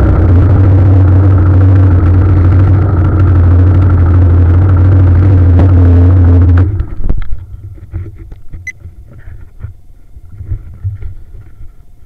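Motorcycle riding, heard from a camera mounted on the bike as a loud, steady low rumble of engine and wind. About two-thirds of the way through the rumble cuts off abruptly as the bike stops, leaving only faint scattered clicks.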